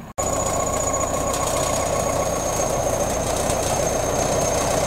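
Crawler bulldozer's diesel engine running steadily as it pushes a pile of earth. It cuts in suddenly a moment after the start.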